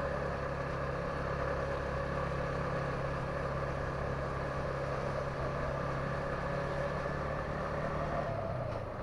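Yamaha MT-15 motorcycle engine running at a steady cruise, heard through a helmet-mounted microphone with road noise. The engine note drops about eight seconds in as the revs fall.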